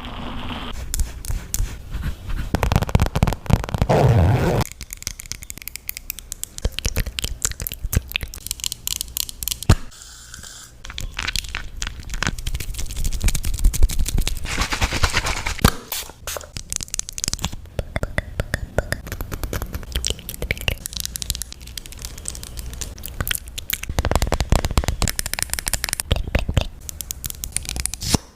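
Slime being squeezed and kneaded by hand: a run of wet squelches with many small clicks and pops from air trapped in it.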